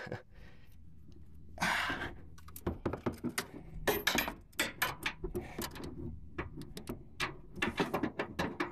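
Steel adjustable wrench, cut down to about four inches, clinking and knocking against the truck's rear shock mount as it is worked loose from the nut. It makes a quick run of sharp metal clicks and knocks from about two seconds in.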